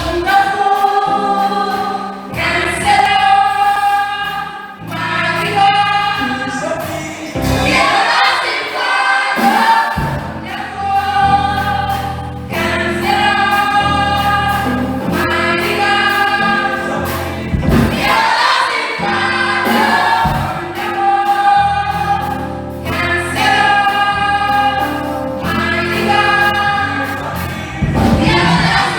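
Choir singing a gospel carol over a keyboard-and-bass backing, in phrases of held notes.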